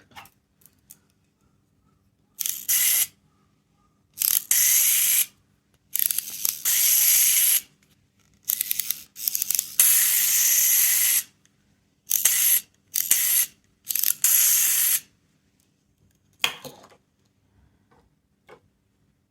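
Sound-effect capsule toy playing short bursts of hissing noise again and again, about ten in all, each lasting half a second to a second and a half, with quiet gaps between them.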